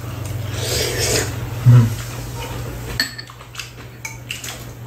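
Eating at a table: a rustly chewing noise in the first second, a short low vocal sound just under two seconds in, then metal spoons and chopsticks clicking lightly against bowls through the second half.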